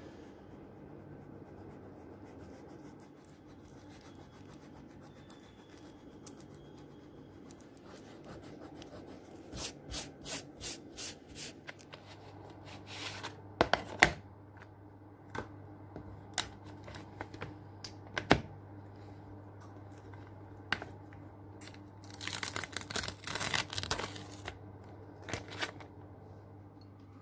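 Small handling noises of paper and art materials at a desk: a run of about six quick scratchy strokes, scattered sharp clicks and taps, and a couple of seconds of paper tearing near the end.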